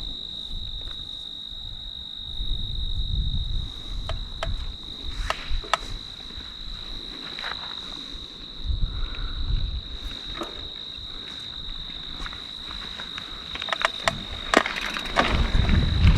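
Crickets singing: one steady, continuous high trill. Low rumbles and scattered sharp clicks sound over it, growing louder and busier near the end.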